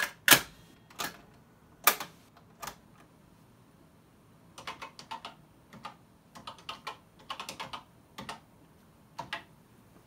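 Four loud, sharp clicks about a second apart from the Commodore 1530 Datasette's piano-key buttons. Then, from about four and a half seconds in, bursts of quick keystrokes on a Commodore PET 4032 keyboard as a SAVE command is typed.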